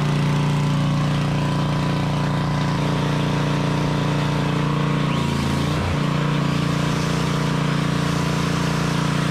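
10 hp Briggs & Stratton engine of a 5000-watt portable generator running steadily on fresh fuel after water was flushed from its fuel system, with a brief dip in engine speed about halfway through.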